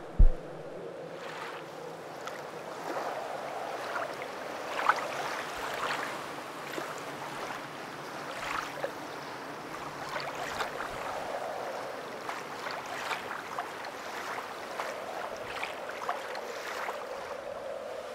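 A deep thump right at the start, then a steady rush of water with many irregular small splashes.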